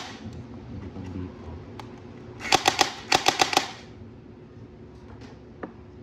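Plastic toy gel blaster rifle clicking: one sharp click at the start, then two quick bursts of rapid, sharp clicks about two and a half seconds in, roughly eight clicks in all.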